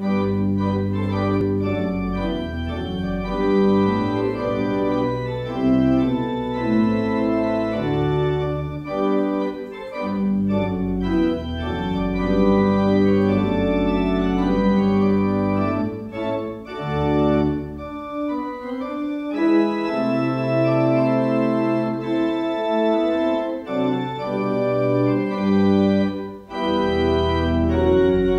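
Organ music that starts suddenly, with held chords over low bass notes.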